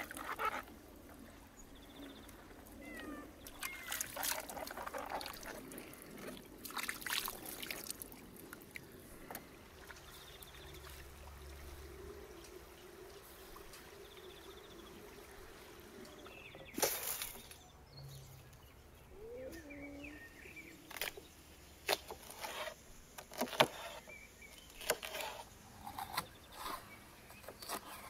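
Water trickling along a shallow garden irrigation channel, with scattered short rustles and knocks from handling peppers over a wicker basket and from footsteps through grass.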